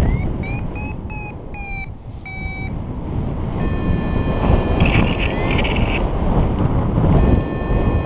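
Strong wind buffeting the microphone of a camera on a paraglider in flight, a loud, steady low rumble. Over it, a flight variometer beeps about six times in the first few seconds, then sounds a steady unbroken tone that drops out for about a second near the end and comes back.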